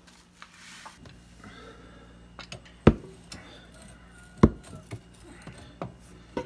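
Pipe fittings and tools being handled during a plumbing repair: a few light clicks and two sharp knocks about a second and a half apart.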